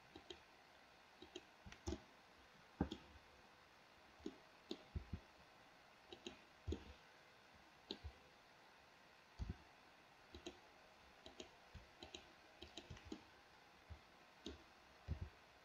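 Computer mouse and keyboard clicking at a desk: scattered, irregular single clicks, sometimes two or three close together, with quiet between them.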